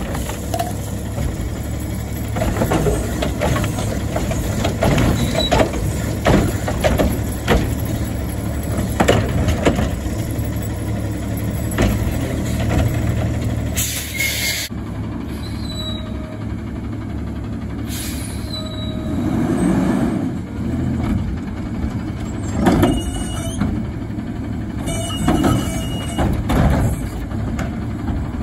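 McNeilus front-loader garbage truck's diesel engine running under hydraulic load as its automated arm tips a yard-waste cart and sets it back down, with repeated clanks and knocks from the arm and cart. A short air-brake hiss comes about halfway through.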